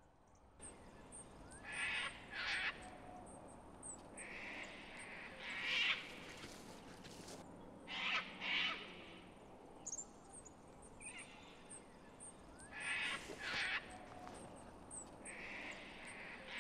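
Birds calling in an open rural soundscape: a pair of short calls followed by a longer call, repeating every few seconds, over faint high chirping.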